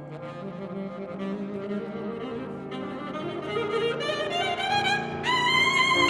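Saxophone and piano playing classical chamber music. The saxophone climbs in a rising run over sustained piano notes and lands on a long held high note about five seconds in, growing louder.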